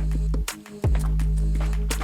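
Background music with deep, held bass notes and sharp drum hits.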